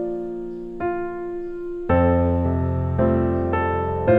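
Background piano music: single notes and chords struck about once a second, with a fuller chord and bass notes coming in about two seconds in.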